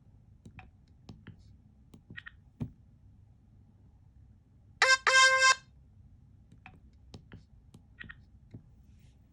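Motorola RAZR V3 keypad buttons clicking faintly and irregularly. About five seconds in, the phone's speaker plays a short electronic tone, a brief blip and then a note of about half a second.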